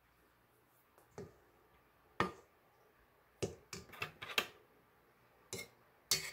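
Silicone spatula knocking and scraping against a stainless steel mixing bowl: a scattered series of about eight short, sharp clicks and knocks at irregular intervals.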